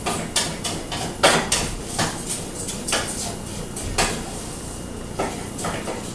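A utensil scraping and knocking against a pan in irregular strokes, stirring brown rice as it fries in olive oil.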